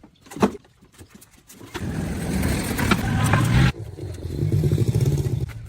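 A vehicle engine running loudly, cut off abruptly partway through, then a steadier low engine drone.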